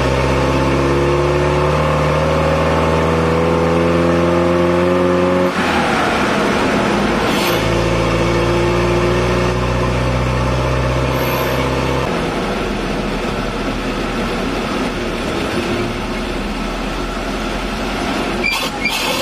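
The four-cylinder 2.5-litre petrol engine of a UAZ 452 van, running on an SU carburettor and pulling on the road, heard from inside the cab. Its note climbs slowly for about five seconds, breaks off, comes back steady, and from about twelve seconds in blurs into a rougher drone with road noise.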